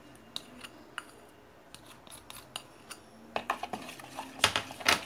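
Plastic spatula stirring a little liquid in a plastic bowl, clicking and scraping against its sides, with scattered ticks at first and a run of louder taps in the last two seconds.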